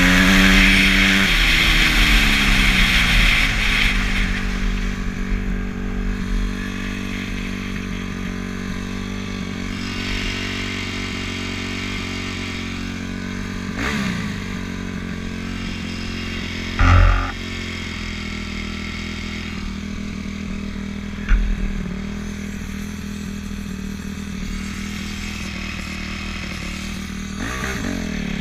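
Dirt bike engine dropping from high revs to idle over the first few seconds, then idling steadily with a short throttle blip about halfway through, and revving up again near the end. A loud, brief thump a little past the middle.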